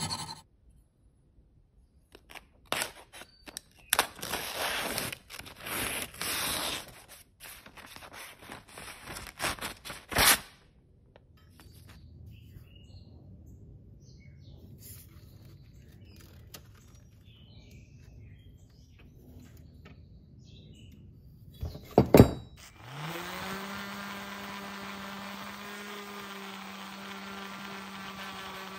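Short bursts of scraping on steel, then two sharp knocks, then an orbital sander spins up, its pitch rising quickly, and runs with a steady hum while sanding the steel blade.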